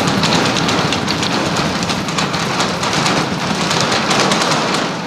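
Super Heavy booster's 33 Raptor engines firing during ascent: a steady, loud crackling rumble.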